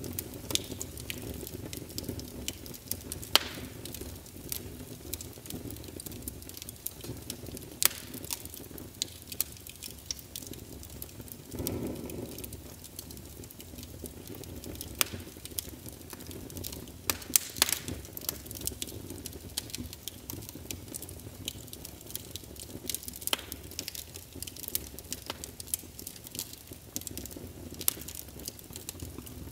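Crackling fire: irregular sharp pops and snaps over a steady low rushing sound, with a brief louder swell about twelve seconds in.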